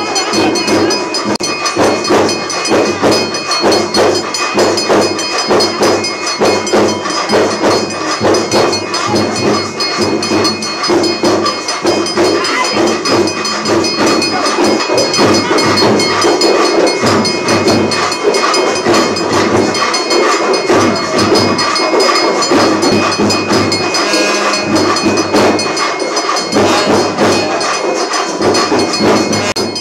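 Temple ritual music during an abhishekam: rhythmic drumming and ringing bells played densely and without pause.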